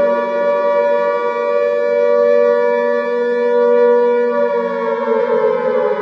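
Civil-defence air-raid siren sounding a steady two-tone wail, then starting to wind down, its pitch falling from about four and a half seconds in.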